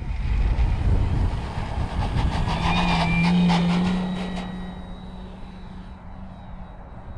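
Electric motor and propeller of a 3D-printed RC Super Chipmunk model plane at takeoff power, throttling up about two and a half seconds in as it rolls down the runway, then fading as the plane climbs away. A low rumble fills the first couple of seconds.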